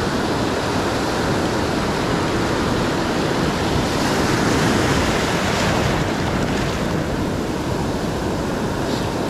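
Ocean surf breaking and washing up the sand in a steady rush, swelling a little about halfway through.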